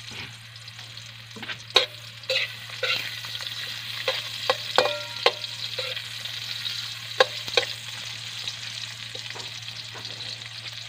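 Garlic and onion sizzling in hot oil in a metal wok, stirred with a metal spatula that scrapes and clanks against the pan several times. One strike, about five seconds in, rings briefly.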